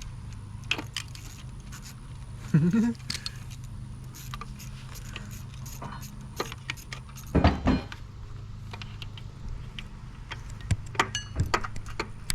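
Metal clinks and rattles of hand tools and engine parts being handled, over a steady low hum. There is a louder clunk about two and a half seconds in and another about five seconds later.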